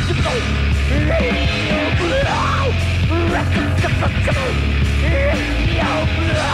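A death metal band playing live, loud and dense: distorted guitars over bass and drums, with short notes that bend and slide in pitch above the low end.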